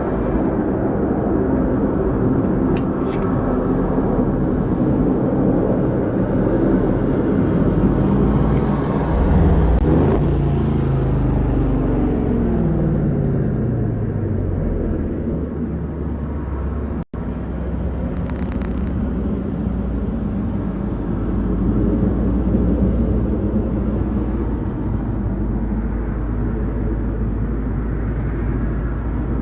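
Steady low traffic rumble, with one vehicle passing whose pitch falls steadily over about five seconds, starting about ten seconds in. The sound cuts out for an instant about seventeen seconds in, and two short faint high-pitched sounds come through, near the start and just after the dropout.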